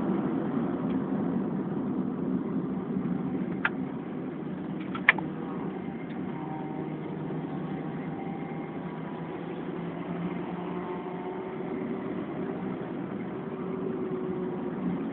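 Nissan 1.4-litre car engine and road noise heard from inside the cabin while it is driven at speed on a race track. A few sharp clicks come about four to five seconds in, and the engine note eases a little after that.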